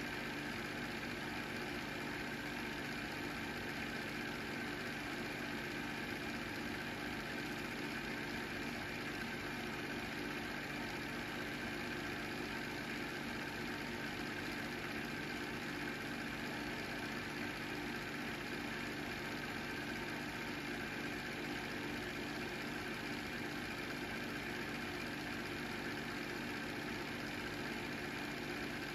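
Film projector running steadily: an even motor and fan hum that does not change.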